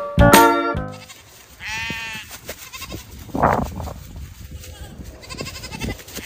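A young farm animal bleating: one wavering bleat about two seconds in, a harsher, louder cry about a second and a half later, and fainter cries after that. Plucked-guitar music cuts off within the first second.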